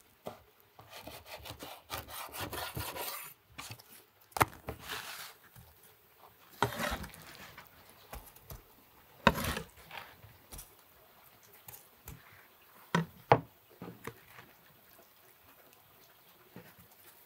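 Large chef's knife scraping across a wooden cutting board and knocking against it while pushing chopped filling onto flatbread. A run of quick back-and-forth scraping strokes about one to three and a half seconds in, then scattered sharp knocks of the blade on the board with softer scrapes between.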